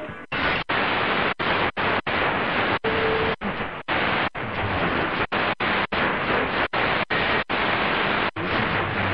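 Qodosen DX-286 shortwave receiver giving steady hiss and static while it is tuned quickly through empty channels in the 31-metre band. The sound drops out for an instant about twice a second as the frequency steps, and a brief faint tone comes through about three seconds in.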